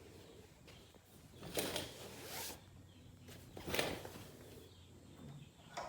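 Two brief scraping rustles about two seconds apart, with a shorter one near the end.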